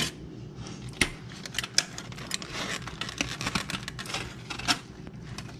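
Aluminium foil crinkling while a metal fork scrapes and clicks through it, in irregular sharp crackles with a few louder clicks.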